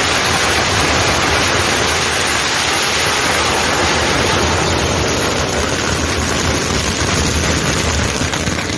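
Ground fountain firework spraying sparks with a loud, steady hiss that begins to thin near the end.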